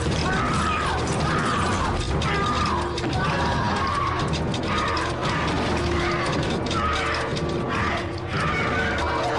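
Dense, rapid fluttering and clattering of a swarm of butterfly wings, a continuous ratchet-like rattle that never lets up, rendered as a TV sound effect.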